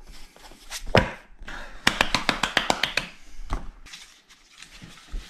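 Packaging and a black plastic-and-strap head mount handled by hand: a sharp knock about a second in, then a quick run of about a dozen clicks, about ten a second, with smaller taps and rustling around them.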